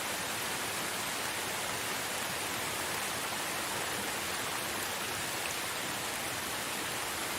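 Steady rain falling, an even hiss of drops with no thunder or distinct impacts.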